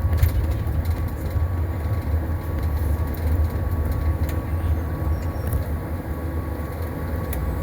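Blue Bird Vision school bus running, a steady low rumble of engine and road noise with a faint steady whine above it.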